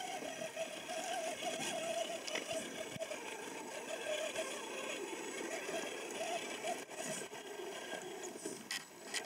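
Electric drive motor and gearbox of an Absima Sherpa RC rock crawler whining as it creeps up a loose gravel slope. The whine wavers in pitch as the throttle changes, and there are a couple of clicks near the end.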